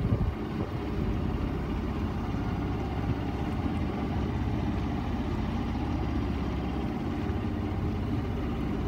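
A sailboat's engine running steadily as the boat motors along, a low, even sound with no change.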